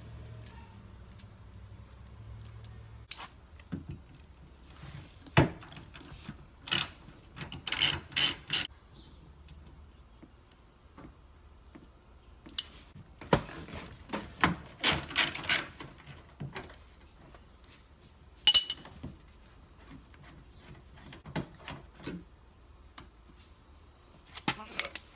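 Ratchet wrench clicking in short, irregular bursts while backing out the bolts that hold a Nissan 350Z door handle. About 18 seconds in there is a single sharp metallic clink that rings briefly.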